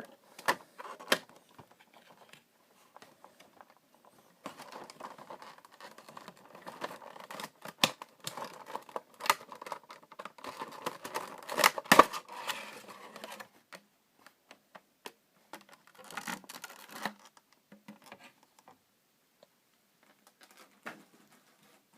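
A Funko Pop vinyl figure's cardboard box and plastic packaging being handled and opened: scattered clicks, then several seconds of denser rustling and scraping with a sharp snap about twelve seconds in, then a few more light clicks.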